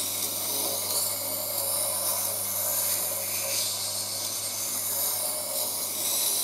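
Tormek T7 wet grinder running: a steady motor hum under the hiss and rasp of a Victorinox boning knife's steel blade rubbing on the wet grindstone.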